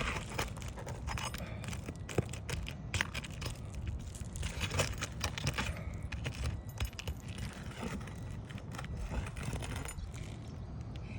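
Metal roofing tool clicking and scraping against asphalt shingles and roofing nails in irregular bursts as a damaged shingle is worked loose, over a steady low rumble.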